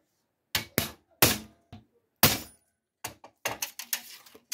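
Hammer striking a centre punch on steel plate through a paper template, marking hole positions for drilling: about five sharp blows over the first two and a half seconds. These are followed by lighter, quicker knocks and clinks of the metal being handled.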